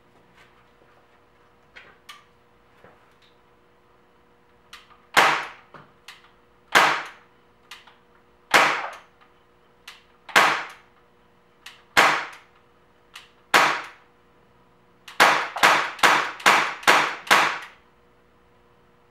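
Gamo GP-20 CO2 BB air pistol firing: six single sharp pops about a second and a half apart, then a quick string of six at about three a second, each with a short ring. Faint clicks come between the shots.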